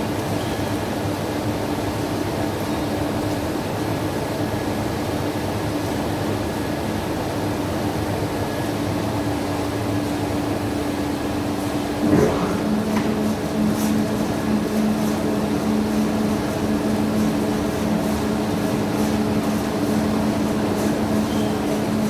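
Steady hum of running industrial machinery. About twelve seconds in there is a single knock, after which a second, lower steady tone joins the hum and faint ticks follow.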